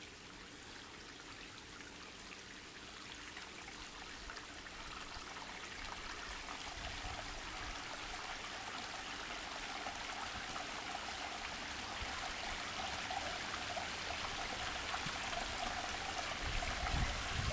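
Water trickling and splashing down a newly built sandstone rock cascade into a pond, growing steadily louder as the pump-fed flow works its way down the stones for the first time.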